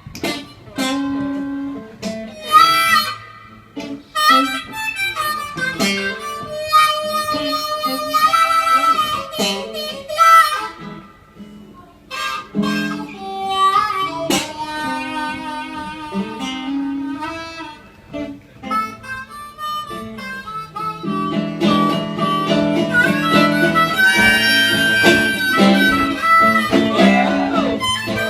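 Blues harmonica solo over acoustic guitar accompaniment, the harmonica playing phrases with bent notes and short breaks between them. The playing grows fuller and louder in the last third.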